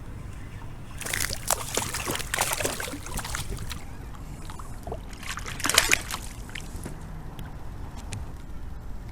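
Water splashing and sloshing beside a kayak as a hooked bass thrashes at the surface while being brought in, in two spells with the loudest splashes a little past the middle.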